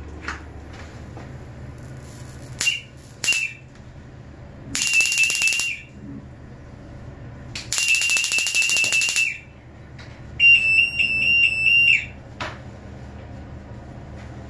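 High-pitched electronic alarm of a Su. Bhaskar holiday detector, sounding in five bursts (two short, three lasting a second or more) as its brass wire-brush electrode, charged to 20 kV, passes over pinholes in the pipe's anti-corrosion coating. During two of the bursts it comes with the crackle of the high voltage arcing through the holiday.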